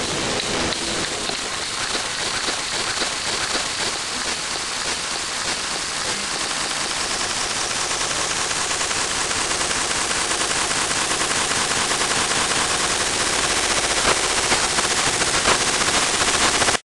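Dense, rapid rattling crackle, slowly building in loudness, then cutting off abruptly near the end.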